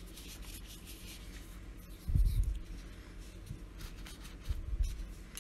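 Fingers rubbing and handling the small clear plastic nib section of a fountain pen, a faint scratchy rubbing, with two dull low thumps about two seconds and four and a half seconds in.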